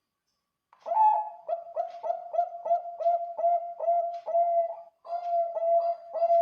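Bangkok-type zebra dove (perkutut) singing its rhythmic cooing song, a big-voiced bird kept for song. The quick coos come at about three a second, starting just under a second in, with a short break near five seconds before the coos carry on.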